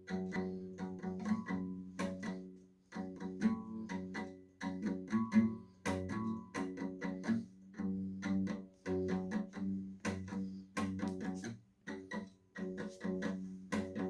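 Instrumental music: string notes plucked in a steady, busy rhythm over held low notes, the lead-in before the singing.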